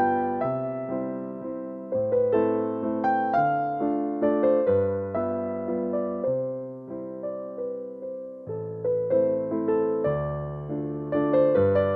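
Background piano music: single struck notes of a gentle melody over chords that change about every two seconds.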